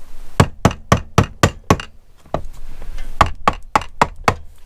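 A mallet knocking the crankcase halves of a Suzuki TS185 two-stroke engine together, seating the cases. The knocks come quickly, about four a second, with a short pause about two seconds in.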